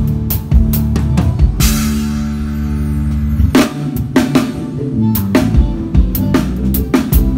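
Drum kit played with a band: kick and snare strokes over bass and held chords. About one and a half seconds in, a crash cymbal is struck and left ringing for about two seconds while the chord is held, then the beat comes back in.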